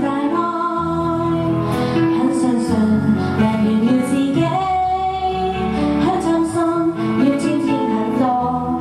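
A woman singing a Chinese-language pop song into a handheld microphone over backing music, holding long notes.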